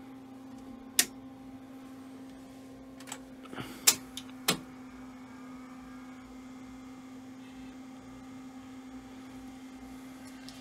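Steady electrical hum from running studio equipment, with a few sharp clicks about a second in and around four seconds in as the Sony PCM-1630 digital audio processor is switched on.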